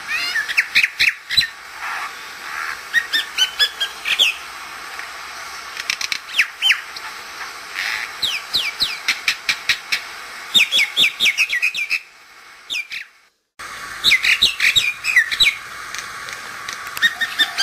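Common mynas (Indian mynas) calling: quick clusters of sharp chirps, whistles and squawks. The calling breaks off for about a second and a half, around twelve seconds in, then starts again.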